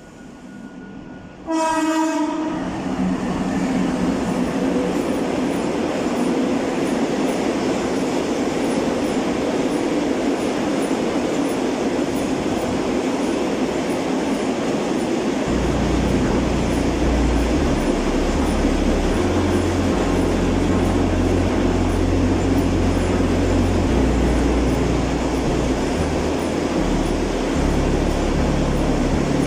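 Freight train's horn gives one short blast of about a second as it approaches, then a car-carrier freight train passes close by with a loud, steady rush of wheels and wagons on the rails. A deep low rumble joins about halfway through as the wagons go past.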